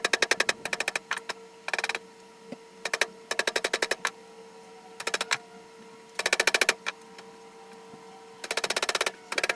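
Air-over-hydraulic press pump chattering in short bursts of rapid, even clicks, eight or nine runs of about half a second to a second each, over a faint steady hum.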